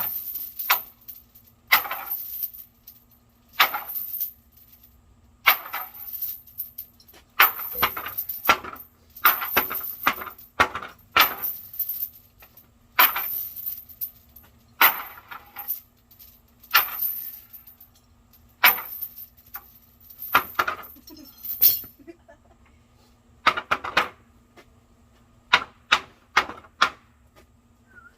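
Lumber being struck again and again with metal tools (chains and a hammer) to distress it, about one blow every one to two seconds, some coming in quick pairs.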